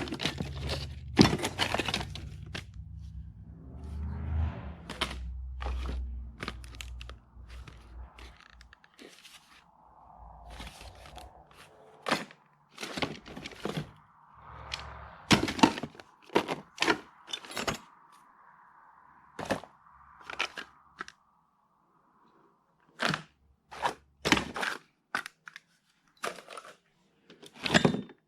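Hard objects being handled and set down: a string of sharp knocks and clacks with some scraping. The first several seconds carry heavier, rumbling handling noise.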